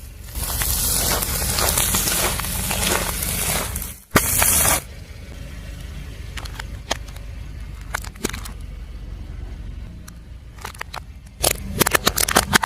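Brittle objects crunching and crackling as a car tyre crushes them. A dense crackle lasts about four seconds and is followed by a short loud hiss. Then come scattered snaps, which thicken into a quick run of cracks near the end.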